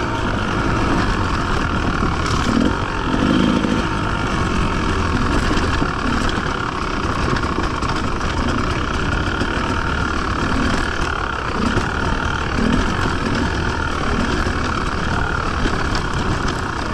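Enduro motorcycle engine running steadily while the bike rides along a dirt trail, with wind and road noise mixed in.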